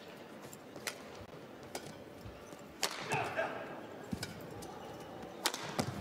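Badminton rally: racquets striking the shuttlecock in a series of sharp smacks, roughly one a second, with a brief squeak of shoes on the court about three seconds in.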